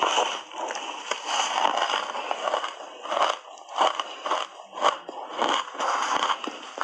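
Crunching of a big bite of ice coated in matcha powder, then chewing of the ice with sharp, irregular crunches about twice a second, close to a clip-on microphone.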